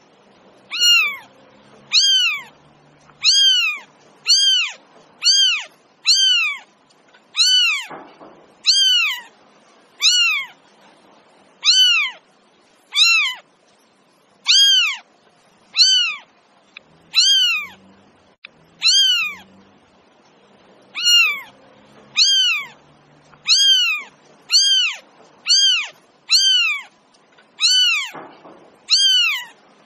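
A cat meowing over and over, about once a second: short, high-pitched meows, each rising and then falling in pitch.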